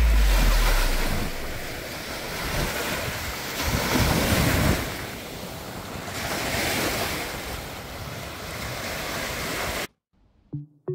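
Small sea waves breaking and washing up on a sandy beach, swelling and fading every couple of seconds, with wind buffeting the microphone. The sound cuts off suddenly shortly before the end.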